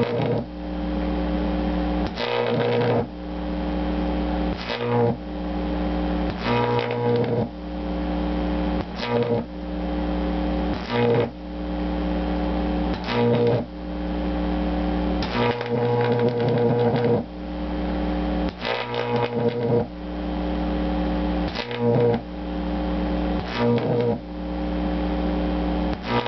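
Microwave oven transformer buzzing loudly with a high-voltage arc struck and drawn out from its two capacitors run in parallel. The buzz breaks off with a crackle and starts again every two seconds or so as the arc is lost and re-struck.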